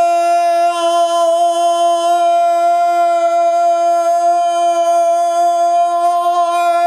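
One long, unbroken sung drone held at a steady pitch, throat-singing style, with bright ringing overtones, in the echo of a concrete bunker.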